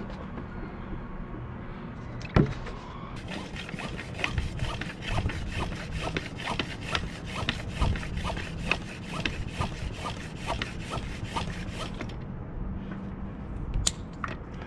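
Floor pump worked in steady strokes, about two a second, inflating a mountain-bike tyre to seat its bead, each stroke a rasping push of air. A sharp click comes a couple of seconds in, and another near the end after the pumping stops.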